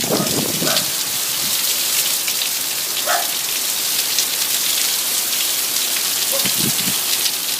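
Heavy rain pouring down in a steady hiss, with many individual drops pattering on a surface. A few brief low sounds rise out of it near the start, about three seconds in and a little before the end.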